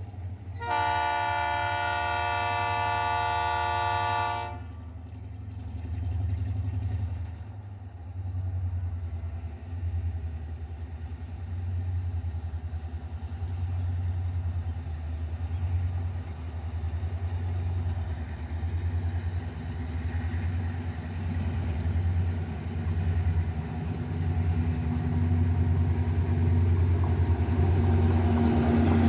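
Ferromex diesel locomotives' air horn sounds one long blast of about four seconds. Then the diesel engines drone steadily, growing louder as the train approaches and draws alongside.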